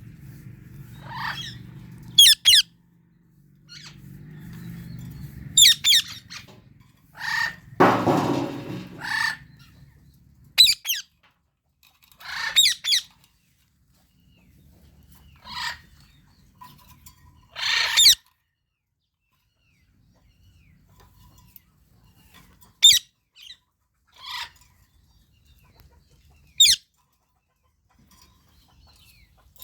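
Indian ringneck and Alexandrine parakeets giving short, sharp, high-pitched calls every few seconds with pauses between them. A longer, lower rustling sound comes about eight seconds in.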